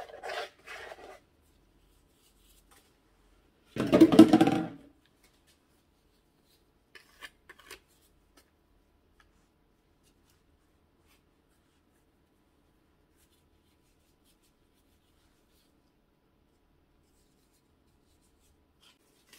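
Dry cake-mix crumb topping rustling and scattering as it is tipped from a plastic bowl and spread by a plastic-gloved hand over a foil pan. There is a few short rustles at first, one louder rustle about four seconds in, and a few faint ticks a few seconds later. Then it is nearly silent.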